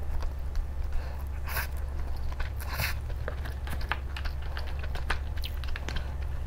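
Close-miked eating sounds: spicy stir-fried instant noodles slurped and chewed, with many small clicks and a couple of louder slurps, over a steady low hum.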